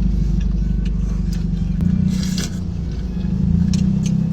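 Steady low rumble of an idling car engine, with a short eating noise about two seconds in.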